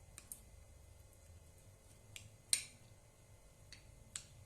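A few light clicks of a spoon on a plate while eating, about five in all, the loudest about two and a half seconds in.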